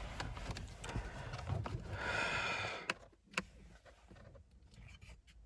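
Small plastic clicks and knocks from hands working the wiring connectors under a steering column, with a breath or sigh about two seconds in; the clicks grow fainter and sparser after about three seconds.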